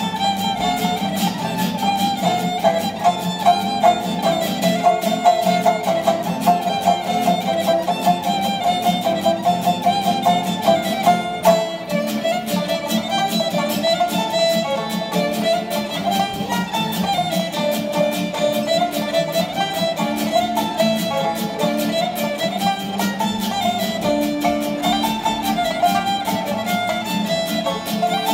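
Live fiddle, banjo and acoustic guitar playing a five-part Ukrainian kolomeyka dance tune, the fiddle carrying the melody over steady strummed and picked chords.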